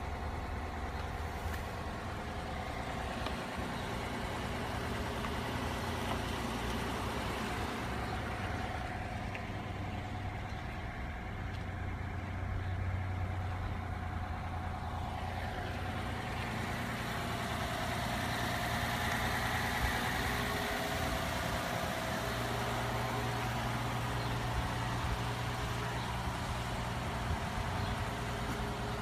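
1951 Mercedes-Benz 300 'Adenauer' sedan's straight-six engine idling steadily.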